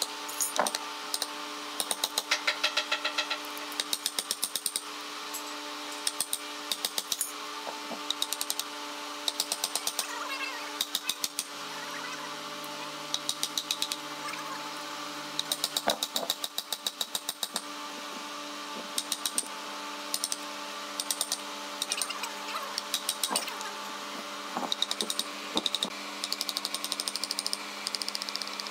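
Mallet striking a chisel into a wooden block in quick runs of sharp knocks, several a second, with short pauses between runs. A steady hum runs underneath.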